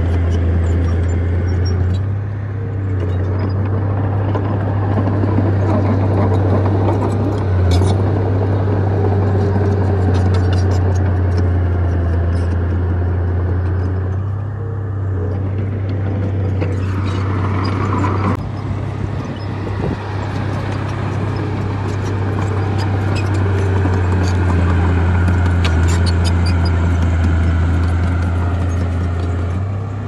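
Heavy diesel earthmoving machinery running steadily: a low engine drone with frequent light clanks and rattles, and a short higher-pitched tone just past the middle.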